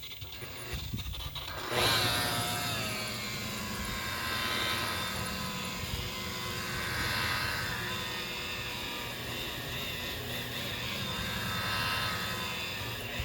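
Electric buffer polishing fiberglass gelcoat with cutting compound, starting up about two seconds in and then running steadily, its loudness swelling and easing as it is worked across the surface.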